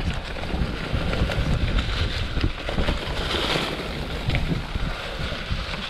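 Mountain bike riding over a dry-leaf-covered dirt trail: tyres rolling through the leaves, wind buffeting the microphone, and scattered clicks and rattles from the bike.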